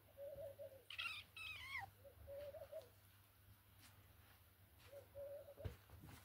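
A kitten gives two short high squeals about a second in, the second falling in pitch at its end, as kittens play-fight. A dove coos three times in the background, about every two and a half seconds, and there is a soft knock near the end.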